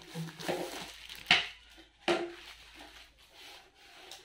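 A rolled paper wall calendar being handled and unrolled: paper rustling, with two sharp taps about a second and two seconds in.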